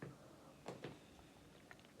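A few faint, short metallic clicks and taps from a deadbolt rim cylinder and its picking tools being handled: one at the start, two close together a little before halfway, and tiny ticks near the end.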